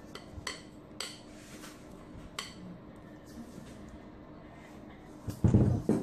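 Glass mixing bowl and spatula clinking against a stainless steel mixing bowl as batter is poured and scraped out: a few sharp clinks, then a loud low thump and rumble near the end.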